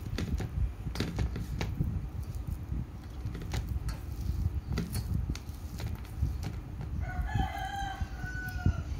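A hand squelching and mixing cooked rice and shredded chicken in a steel bowl, with soft wet squishes and small clicks. Near the end an animal gives one long call of about two seconds, held at an even pitch and dipping at the close.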